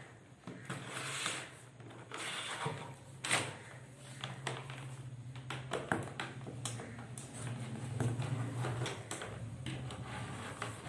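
Insulated live wire being pulled through PVC conduit and plastic junction boxes: irregular scraping and rustling of the wire with small knocks and clicks from handling the plastic fittings, over a steady low hum.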